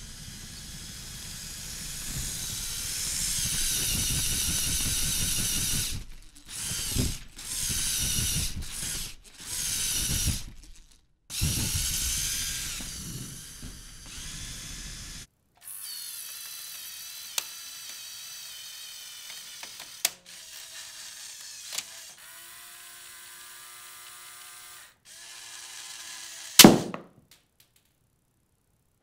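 Lego Technic tank's electric motors and plastic tracks whirring in several short runs, with a wavering high whine. Then, about halfway through, the gun's motorised gear mechanism runs quieter and steadier with a few light clicks, ending in one sharp snap near the end.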